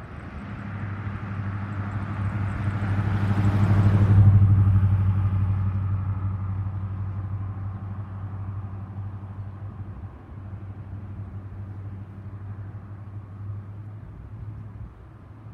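A motor vehicle passing, growing louder to a peak about four seconds in and then slowly fading, over a steady low engine hum.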